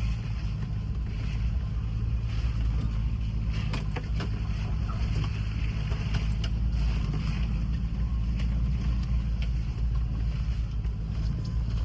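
Land Rover Discovery engine running with a steady low rumble while the truck crawls over a rough off-road trail. Scattered knocks and rattles from the body and suspension come through over it, a cluster of them about four seconds in.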